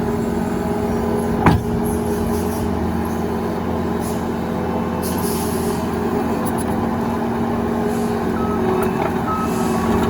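Diesel engine of a Case TV380 skid steer running steadily, with a single sharp clank about one and a half seconds in.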